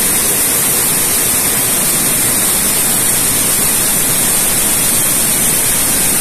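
Tsudakoma weaving loom running at speed with its mechanical tuck-in device working: a loud, steady machine noise with a strong high hiss.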